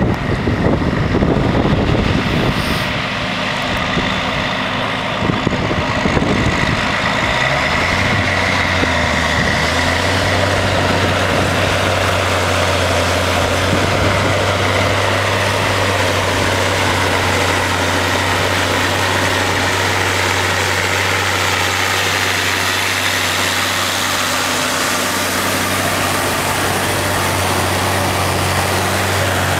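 Large tractor engine running steadily under load as it pulls a trailed subsoiler through the soil. A rough, noisy rumble at first gives way about eight seconds in to a steady, low engine drone.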